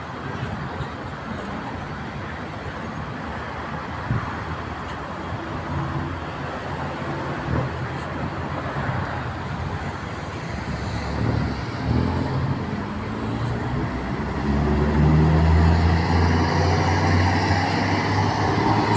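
City road traffic: a steady wash of passing cars, then a vehicle's engine close by grows louder and hums steadily through the last few seconds.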